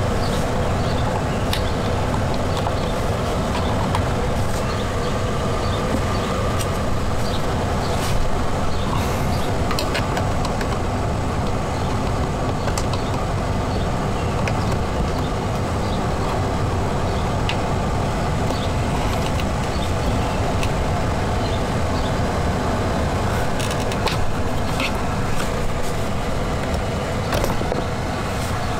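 Steady loud rumbling noise throughout, with scattered light clicks and knocks of plastic interior trim and clips being handled.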